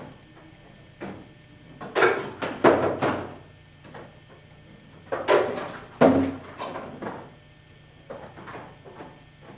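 Homemade foam-core ball-tossing machines clattering as their rubber-band-powered plastic-spoon launchers snap and parts knock together. The knocks come in two clusters about three seconds apart, with faint ticking between them.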